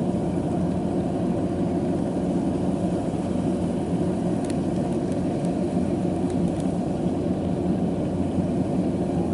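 Combine harvester engine left running unattended, a steady low drone that does not change pitch or level.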